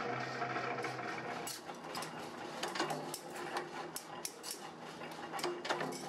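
A machine motor hums steadily, then drops away about one and a half seconds in. Irregular metallic clinks and clicks follow as loose cut sheet-metal blanks are handled against each other and the steel tray.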